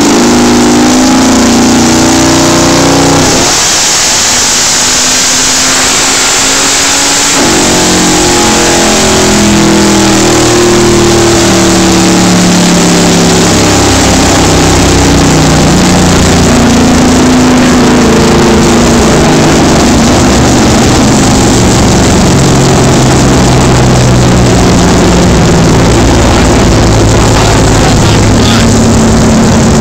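A 1968 Camaro SS drag car's V8 running hard on a chassis dynamometer, very loud. Its pitch steps up and down over and over, and for a few seconds near the start it turns into a dense, ragged blare.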